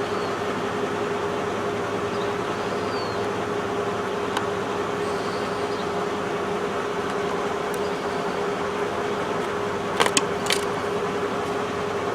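Steady machine hum with one constant tone, broken about ten seconds in by a quick cluster of three or four sharp clicks.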